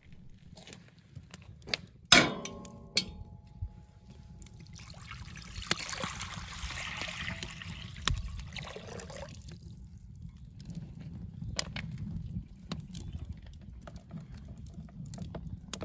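Water poured from a container into a cast-iron Dutch oven, a splashing pour lasting several seconds. A sharp metallic clank that rings briefly comes before it, and a few small knocks follow.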